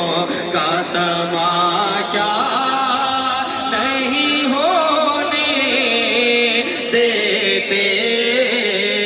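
Men's voices singing an Urdu naat in long, wavering, drawn-out held notes.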